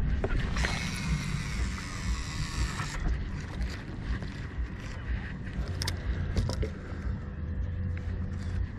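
Low wind rumble and water noise around a drifting fishing boat. A high, hissing whir lasts about two seconds near the start and stops sharply. A few light clicks follow from handling the rod and reel.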